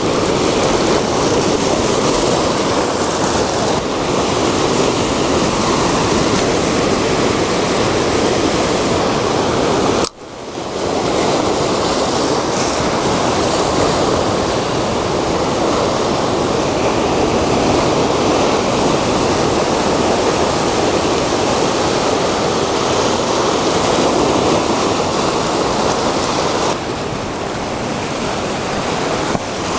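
Ocean surf breaking and washing over lava rocks, a steady rush of water. It cuts out for an instant about ten seconds in and turns a little quieter near the end.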